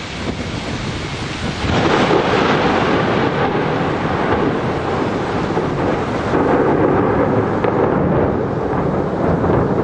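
Thunder rumbling from nearby lightning strikes during a monsoon thunderstorm, swelling sharply about two seconds in and again about six seconds in.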